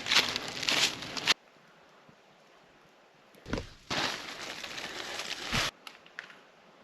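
A hiker's footsteps crunching and rustling on a leafy, rocky mountain trail, in two short stretches that each cut off abruptly, with near quiet in between.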